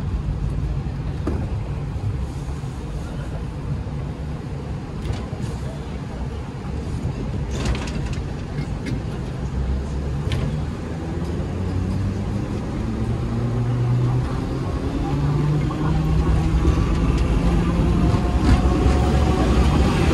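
Hong Kong electric double-decker tram running on its rails: a steady low rumble with a few short clicks, then a whine that rises in pitch through the second half as the tram picks up speed.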